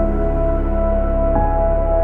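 Background music: slow ambient chords held steady, changing to a new chord about one and a half seconds in.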